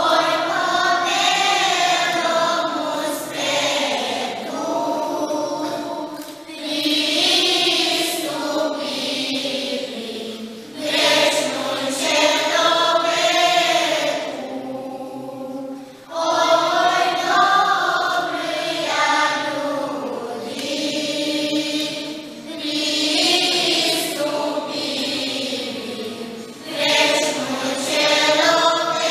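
Children's choir of boys and girls singing unaccompanied, in phrases a few seconds long with short breaks between them.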